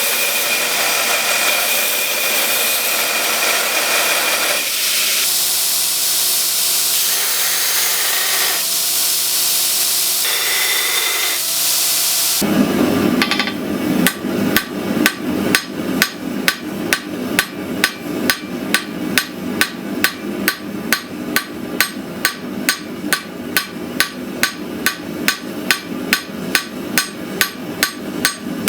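A grinder running steadily on steel for about the first twelve seconds. Then a hammer starts striking hot Damascus steel on an anvil, evenly at about two ringing blows a second, forging the piece wider.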